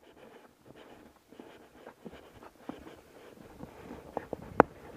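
Hikers' footsteps on a wooden plank boardwalk: soft and irregular at first, then a few sharp knocks on the planks near the end.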